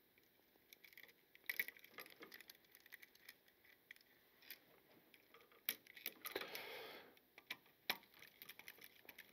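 Faint scattered clicks and small metal handling sounds of a screwdriver working a ground wire onto a duplex outlet's terminal screw, with a longer rasping scrape about six seconds in.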